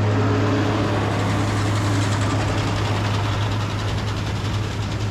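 Tractor engine running steadily with a low drone while pulling a round baler that is picking up dry alfalfa hay, along with the baler's steady machinery noise.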